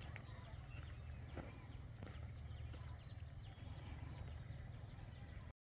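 Birds calling with many short, quick falling chirps over a low steady rumble. The sound cuts off suddenly near the end.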